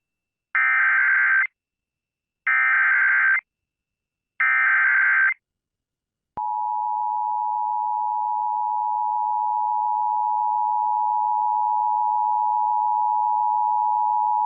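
Emergency Alert System activation: three one-second bursts of SAME digital header data tones, a second apart, then the two-tone EAS attention signal (853 and 960 Hz together) held steady for about eight seconds. The header codes a severe thunderstorm warning.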